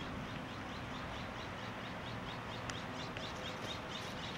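Small birds chirping: many short, quick high calls, thickest near the end, over a steady background hiss.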